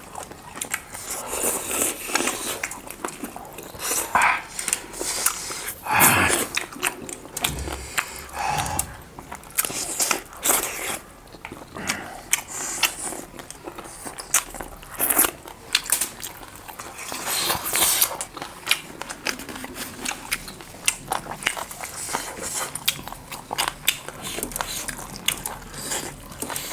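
People chewing and biting into food, mutton and chicken lollipops with rice and gravy: a steady run of irregular short clicks and chewing noises.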